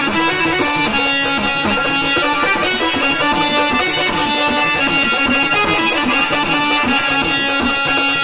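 Marathi gondhal folk music played without words: steady held notes over a fast, even beat.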